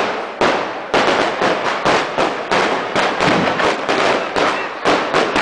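Firecrackers exploding in a rapid, irregular barrage, several sharp bangs a second overlapping one another.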